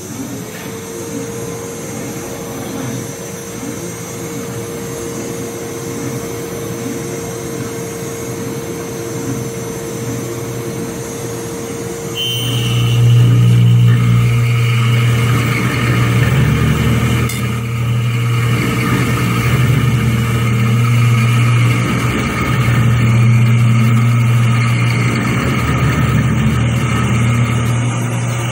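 Small DIY CNC mill's spindle spins up at the start and runs with a steady whine while an end mill cuts into an aluminium block. About twelve seconds in, a much louder motor switches on abruptly with a low hum and high whines, driving the chip-clearing hose held at the cut, and runs on steadily.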